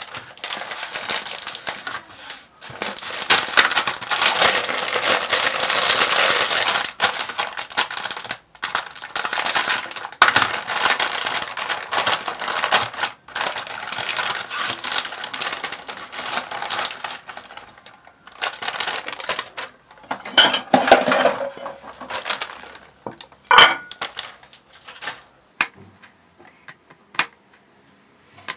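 A packet of chicken nuggets crinkling and rustling loudly as hands grip and tear it open, then a scattering of sharp clicks and taps near the end.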